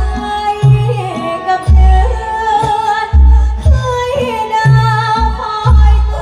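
A girl's singing voice over band music, carried by a heavy, regular bass drum beat.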